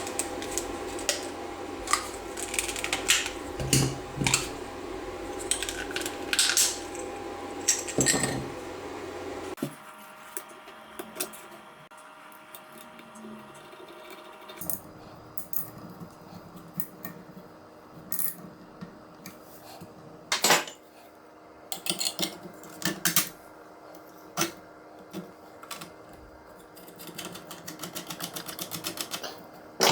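Small plastic parts being handled and fitted together: scattered clicks and knocks of 3D-printed pieces and Loc-Line segments. A steady hum underneath stops about a third of the way in, and a quick run of ticks comes near the end.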